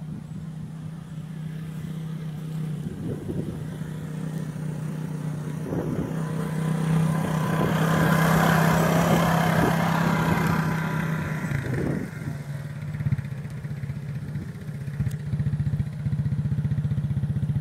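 Suzuki utility ATV engine running steadily at low speed, growing louder as the quad passes close by in the middle, then easing off as it rolls away.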